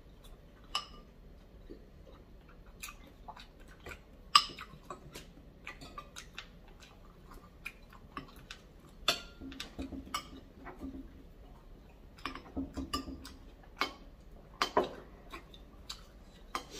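Someone eating bakso meatball soup: chewing and mouth sounds, broken by irregular sharp clicks.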